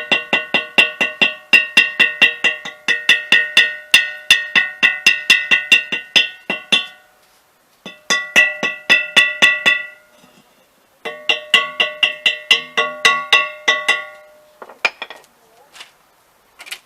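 Rhythmic hand scraping on a rusty old metal wheel, about four strokes a second, each stroke making the metal ring at the same pitches. The strokes come in three runs with short pauses, then a few scattered strokes near the end, as the loose rust and crust is scraped off.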